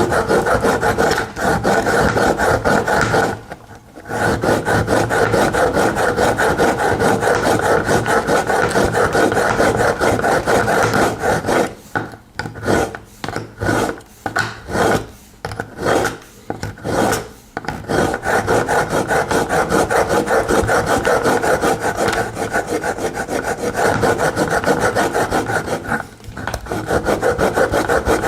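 Pocket-knife blade drawn back and forth through the IKEA Aspekt sharpener's rotating grinding stones: steel grinding on stone in a fast, gritty rasp. It breaks off briefly about four seconds in, turns to short separate strokes in the middle, and pauses once more near the end.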